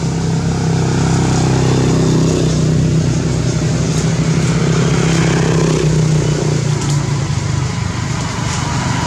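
An engine running steadily, a low, even hum that barely changes in pitch.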